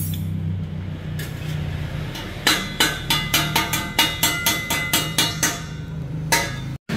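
Quick metallic taps on a stainless-steel exhaust tip, about four a second for some three seconds, each with a short ring, and one more tap near the end, as the tip is worked onto the exhaust pipe with a metal tool. A low steady hum runs under the taps.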